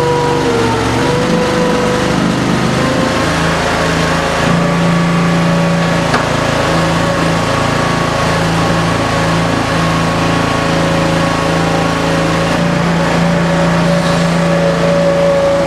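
Tire baler's 16-hp V-twin Briggs & Stratton gas engine running steadily, driving the hydraulic pump, with a steady whine over the engine note; the whine dips briefly in pitch just after the start.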